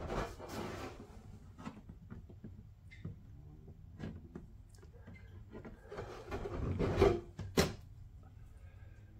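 Hands pressing and working a soft, moldable patch onto a hollow plastic blow mold: rubbing and handling noises against the plastic shell. The handling gets louder about six to eight seconds in, with a sharp click near the end of that stretch.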